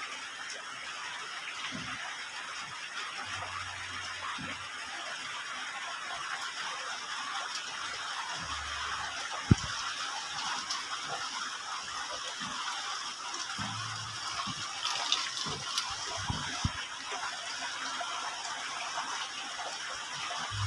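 Steady hiss of rain falling, with a few dull knocks and one sharp click about halfway through.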